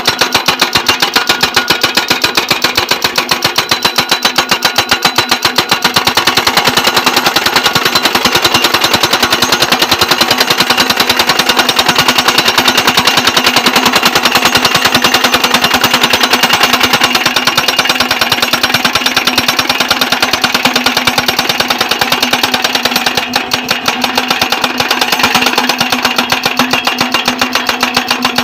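Crash barrier post-driving machine hammering steel posts with rapid, evenly repeated blows over its running engine.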